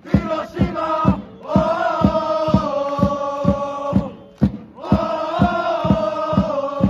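Football supporters chanting in unison, holding long sung notes, over a steady drum beat of about two to three strokes a second.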